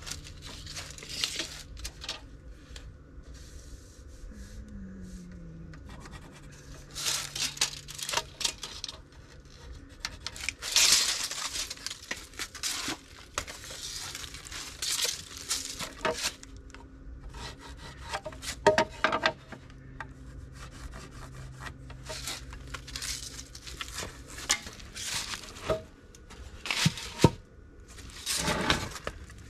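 Wooden boards being handled on sawhorses: irregular rubbing and scraping of lumber sliding on wood, with a few light knocks.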